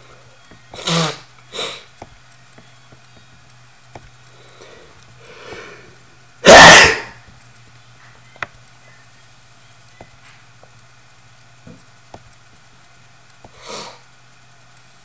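A person's loud, breathy noise bursts: two short ones about a second in, a faint one, a very loud one near the middle and a softer one near the end. Single computer-mouse clicks fall between them over a low steady hum.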